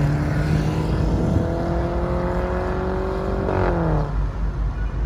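Mercedes-Benz C300's turbocharged four-cylinder engine through an Armytrix full aftermarket exhaust, accelerating hard past with its pitch rising steadily, then dropping at an upshift about three and a half seconds in before fading.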